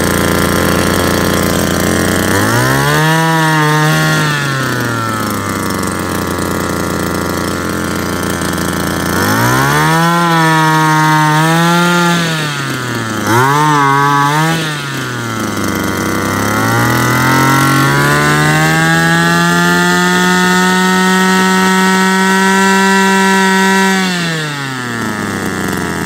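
Small two-stroke brush-cutter engine running: it idles, then is revved up four times, the last rev held for about seven seconds before it drops back to idle near the end.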